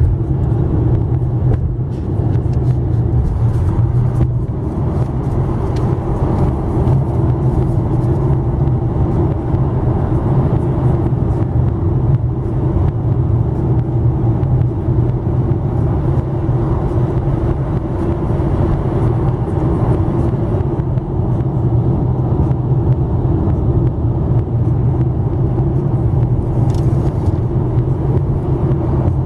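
Steady road noise inside a car's cabin at highway speed: tyres and engine droning low and even, with no change through the stretch.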